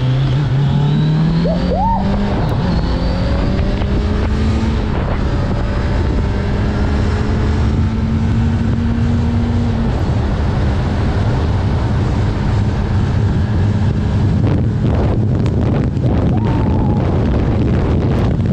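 Kawasaki Z900's inline-four engine, with an aftermarket full exhaust system, pulling through a gear: its note climbs over the first couple of seconds, then holds a steady pitch at cruise. From about halfway, wind noise on the microphone largely covers the engine.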